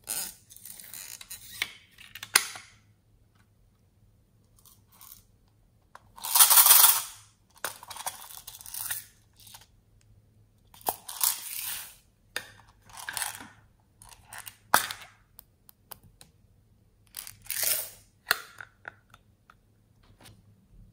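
Tiny plastic beads and confetti rattling as they are shaken and poured out of a plastic toy case into a plastic tray, in a series of short bursts with a few sharp plastic clicks from the case.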